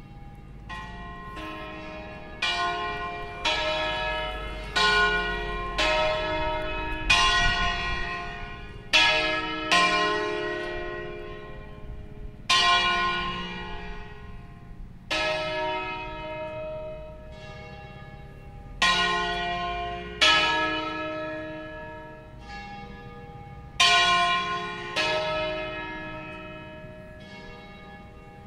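Three church bells of a five-bell Veronese-style ring, tuned E-flat, F and G, pealing the festive call to Mass. Single strokes come about one a second with a few longer pauses, each bell ringing on and dying away after it is struck.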